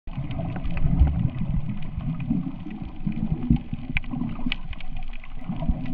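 Underwater ambience recorded by a diver's camera: a muffled low rumble of moving water with many scattered sharp clicks and crackles.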